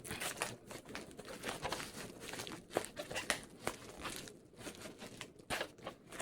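A shipping package being torn and crinkled open by hand: an irregular run of crackling and ripping as the tough packaging resists.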